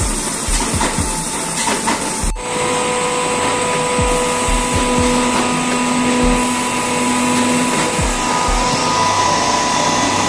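Rotary screw air compressor running loaded: a loud, steady rush of machine noise. About two seconds in there is a sharp click, after which a steady whine with a few held tones joins it.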